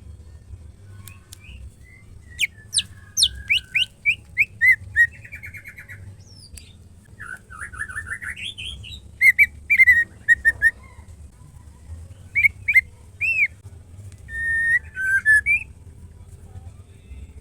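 Female white-rumped shama calling in short bursts of clear whistled notes: a run of quick downward-sweeping notes, a rising buzzy phrase, then several loud clipped whistles, with pauses between. A steady low hum lies under it.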